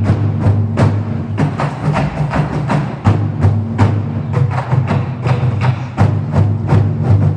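School marching band playing: held low brass notes under a quick, steady run of drum and percussion strikes.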